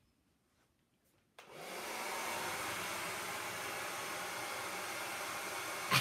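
Handheld hair dryer switched on about a second and a half in, then running with a steady blowing noise.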